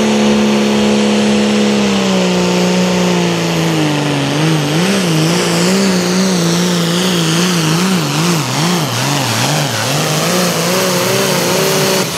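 Light pro stock pulling tractor's 466-cubic-inch turbocharged diesel engine at full throttle, pulling a weight-transfer sled. Its note holds steady, drops after about two seconds as the load builds, then wavers up and down about one and a half times a second for the rest of the pull.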